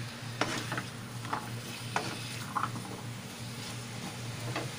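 Cubed squash being stirred as it sautés in a frying pan: a spatula scrapes and clicks against the pan at irregular moments over a light sizzle. A steady low hum runs underneath.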